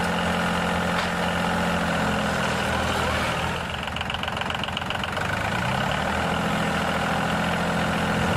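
An engine running steadily at idle. It dips slightly a few seconds in, then its pitch rises briefly before settling back to a steady run.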